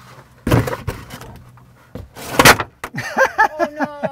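A small hinged shelter door being handled: a scraping knock about half a second in and a louder sharp clatter near two and a half seconds.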